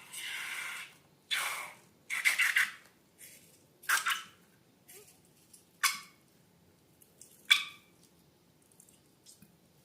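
Slime being squished and worked by hand: a string of about seven short, irregular squishing bursts with brief pauses between them.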